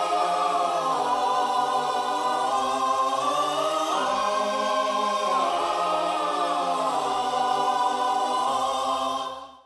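Background music of sustained, choir-like voices holding long chords, fading out quickly near the end.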